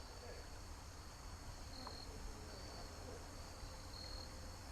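Faint insect chorus of crickets: a steady high-pitched trill with short high chirps repeating about once a second, over a low steady rumble.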